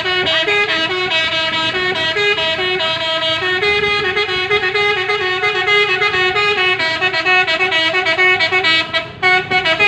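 Musical multi-tone horn of a Mitsubishi Fuso sand dump truck playing a tune of short notes that step up and down in pitch, with a brief break about nine seconds in.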